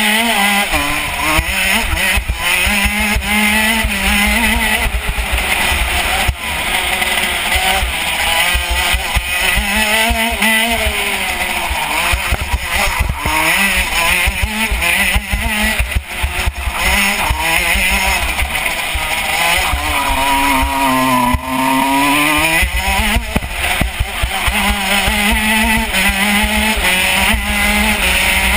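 KZ125 shifter kart's 125 cc two-stroke engine revving hard around a lap. Its pitch climbs, then drops off again into corners every few seconds, over a steady low rumble of wind.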